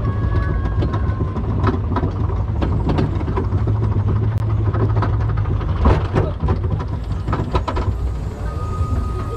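Roller coaster train climbing the lift hill: a steady low rumble with irregular metallic clanks and clicks from the train and track.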